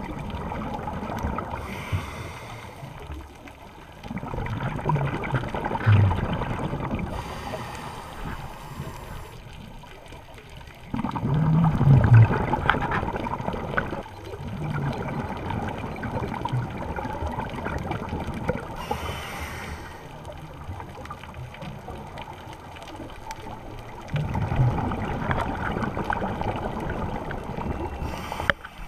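Scuba diver breathing through a regulator underwater: a short hiss on each inhale and a louder bubbling rush on each exhale, three slow breaths in all.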